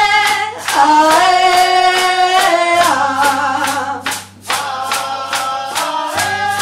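Live Colombian folk music: a woman singing lead over hand drums and hand percussion keeping a steady beat. A low held note comes in about three seconds in.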